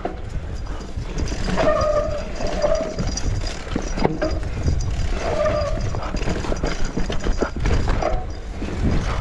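Mountain bike ridden down a dirt forest trail: a constant low rumble of tyres on the ground and wind on the microphone, with rattling knocks from the bike over bumps and three or four short squeals from the disc brakes as they are applied.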